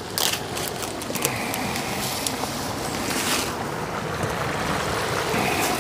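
Julienned carrots frying in hot oil in a cast-iron kazan, with a steady sizzle: this is the zirvak stage of plov. A light knock sounds just at the start.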